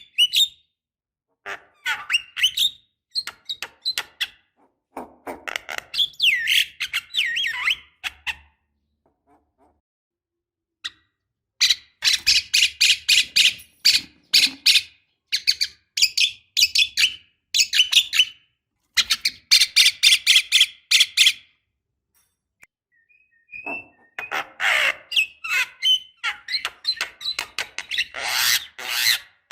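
Javan myna calling: harsh, rattling chatter in long runs of rapid notes, broken by two pauses of a couple of seconds each.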